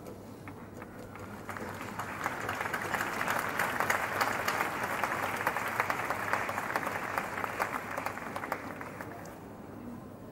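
Audience applauding, building up about a second and a half in and dying away shortly before the end.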